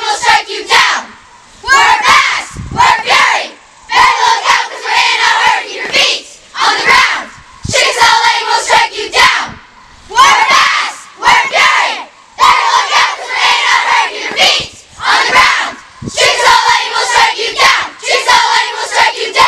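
A large group of girls shouting a camp tribe yell in unison: loud chanted phrases about every two seconds with short pauses between them.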